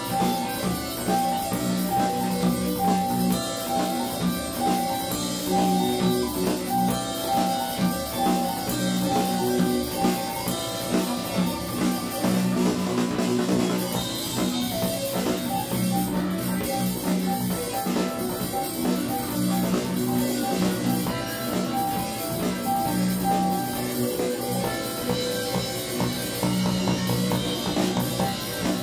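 Live band playing: keyboards, guitar, bass and drum kit, with a steady drum beat under sustained keyboard notes.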